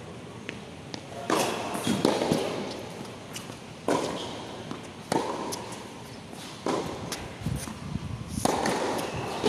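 Tennis balls struck by rackets during a rally: a run of sharp hits about every one and a half seconds, each ringing on briefly in the echo of the roofed court.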